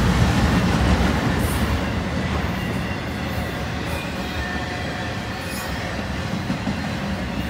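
Intermodal freight train of container and trailer cars rolling past close by: steady wheel-and-rail noise, a little louder in the first second or so, then even.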